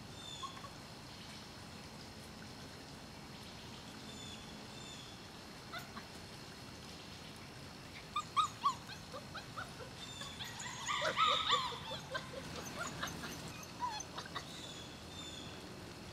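Thirty-day-old Šarplaninac puppies whimpering and yipping in short, high-pitched squeaks, a few at first and then a brief flurry of them in the middle.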